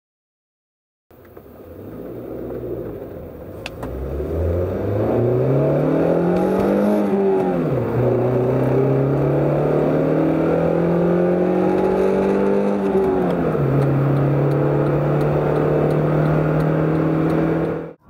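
Honda i-VTEC four-cylinder engine, heard from inside the cabin, driven hard at high revs through a manual gearbox. It starts about a second in and climbs steadily in pitch, drops sharply at two upshifts about eight and thirteen seconds in, then holds steady at around 4,700 rpm.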